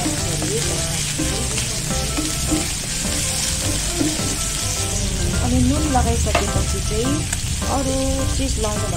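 Sliced pork sizzling in hot oil in a nonstick frying pan, stirred and turned with a wooden spatula.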